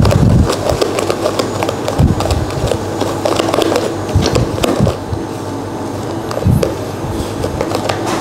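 Kitchen utensil scraping and knocking irregularly against a bowl or baking pan while cake batter is mixed, over a steady low hum.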